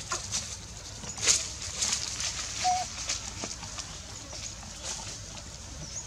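Outdoor ambience: scattered rustling and small snaps with a few short high chirps, the sharpest about a second in, over a faint steady high hiss.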